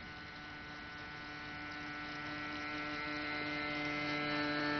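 R/C model cabin cruiser's motor running with a steady hum, growing louder as the boat comes closer.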